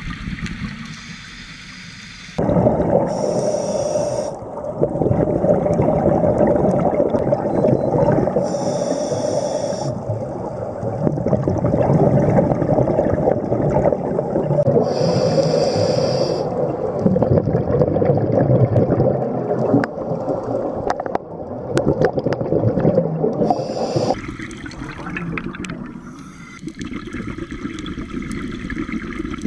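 Scuba breathing through a regulator underwater, heard close up: a short hiss on each inhale, four times about every five to seven seconds, between long stretches of rumbling, bubbling exhaust bubbles. Quieter near the end.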